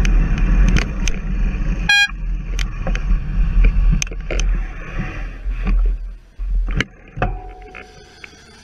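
Wind buffeting a bicycle-mounted camera's microphone while the bike rolls, with scattered clicks and rattles from the mount. There is a brief high beep about two seconds in. The wind noise drops away as the bike slows to a stop, and a short steady tone follows about a second later.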